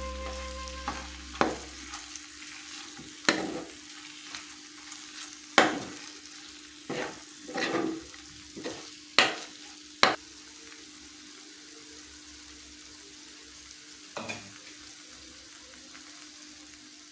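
Chicken sizzling gently in a pan of soy-sauce gravy while a spoon stirs it, with sharp knocks and scrapes of the spoon against the pan, most of them in the first ten seconds.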